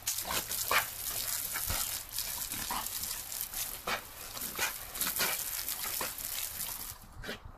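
Garden hose jet spraying in a steady hiss and spattering against a Rottweiler puppy that snaps and bites at the stream. The spray cuts off about seven seconds in.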